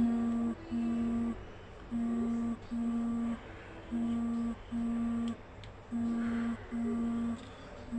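Low electronic beeper sounding in pairs of beeps, one pair about every two seconds, repeating steadily.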